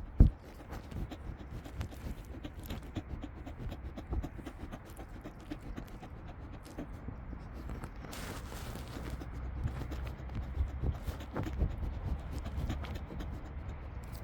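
A lamb nosing and sniffing right at the camera, its muzzle knocking and scraping against it, with one hard bump at the start and a short breathy rush about eight seconds in.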